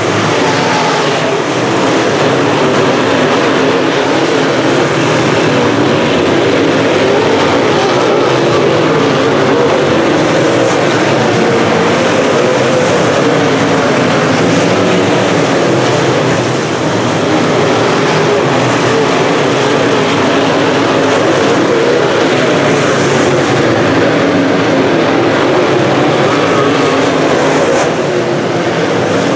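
A pack of UMP dirt modified race cars with V8 engines running at speed around a dirt oval. Their overlapping engines make a loud, steady sound throughout.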